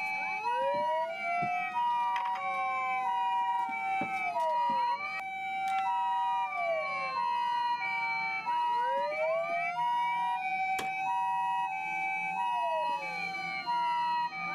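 Several Japanese emergency-vehicle electronic sirens sounding at once from combined siren amplifiers. An ambulance-style two-note hi-lo tone alternates steadily over a long wail that rises, holds and falls, with slower falling sweeps layered on top.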